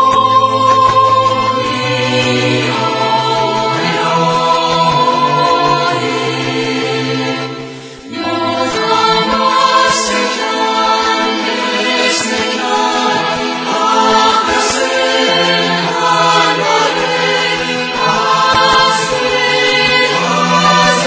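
A choir singing long held notes, with a brief pause about eight seconds in before the singing resumes.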